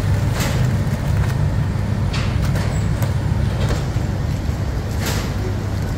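Steady low engine-like rumble, with several brief crinkles of thin plastic bags as cookies are bagged by hand.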